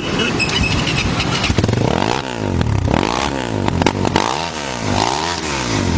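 CrossFire dirt bike engine running, then revved up and let back down about four times, roughly once a second.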